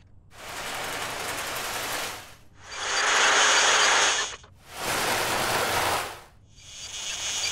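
Small electric toy train running along its track, a rattling run with a faint high motor whine. It passes four times, each pass swelling up and fading away, with short gaps between.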